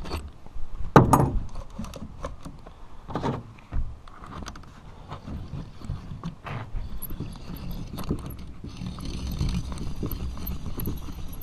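Timberline chainsaw sharpener being worked on a chain tooth: hand-turned carbide cutter and aluminium jig making sharp metallic clicks and knocks as the cutter is turned, pulled out and the chain shifted, with a steadier scraping in the second half.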